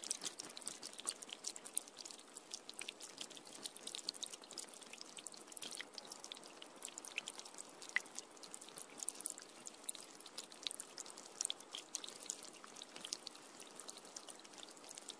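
Steady rain: a dense, uneven patter of small, high-pitched drop ticks over a soft hiss of falling water.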